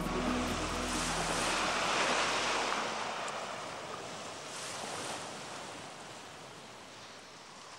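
Sea wash and wind on a sailing ship's deck: a steady rushing noise that swells twice and slowly fades down. The tail of background music dies away in the first second or so.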